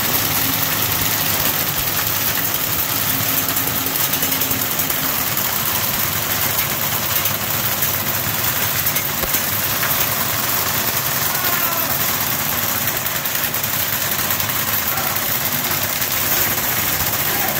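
Many airsoft guns firing full auto at once: a dense, unbroken rattle that keeps on at an even level.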